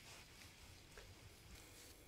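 Near silence: faint background hiss, with one faint click about a second in.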